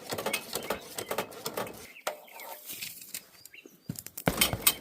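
Irregular metallic clicks and clinks from hand work on the wheel's lug bolts, with a louder clatter near the end.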